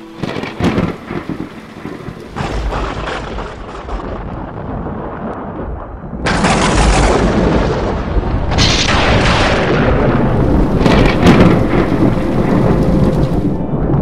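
Thunderstorm: rain with rumbling thunder, turning louder and heavier about six seconds in.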